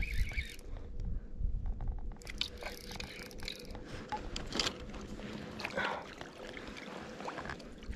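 Irregular handling noises close to the microphone: scattered scrapes, crackles and clicks with no steady rhythm, over a faint steady hum.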